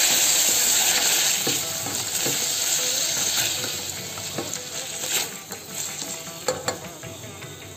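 Chopped onions and tomatoes sizzling in hot oil in a stainless steel pot, stirred with a slotted spatula that clicks and scrapes against the pot. The sizzle dies down over a few seconds as the fresh vegetables cool the oil.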